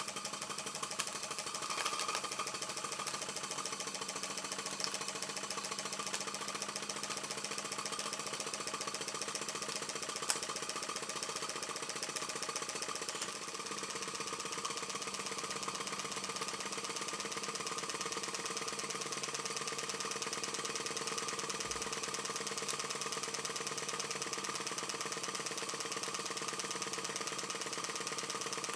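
Markie Scenic Showman's live-steam model traction engine running in steam, a steady rapid beat of its working cylinder and motion over a constant hiss of steam.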